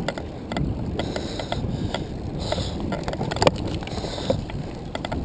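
Handcycle being cranked along a paved road: tyre and road rumble with a steady run of ticks from the chain and chainrings, about three a second, and one sharp knock about three and a half seconds in.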